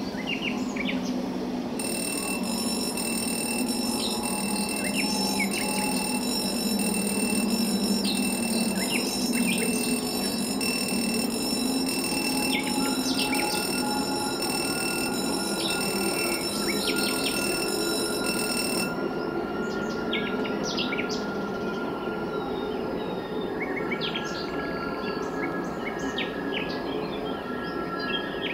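Many birds chirping in short, sharp calls over a steady low hum. A set of faint, steady high-pitched tones starts about two seconds in and stops abruptly past the middle.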